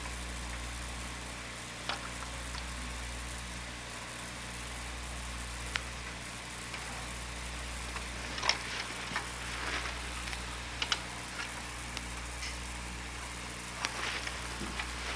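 Steady hiss and low mains hum of an old videotape recording, with scattered faint clicks and ticks, more of them in the second half.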